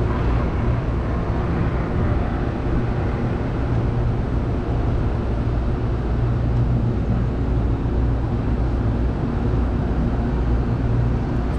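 Large Engineered Air make-up air unit running: a steady rush of its condenser fans and compressors over a constant low electrical hum. The last condenser fan has been started by hand at its contactor and is running properly.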